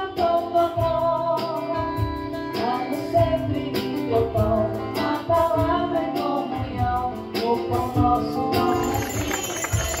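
Church music group playing a hymn: a woman singing into a microphone over acoustic guitar, electric keyboard and a drum kit keeping a steady beat.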